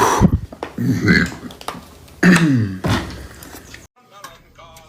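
Loud burps, three in a row about a second apart, the last one longer with a pitch that falls. The sound cuts off suddenly a second before the end, leaving only faint sound.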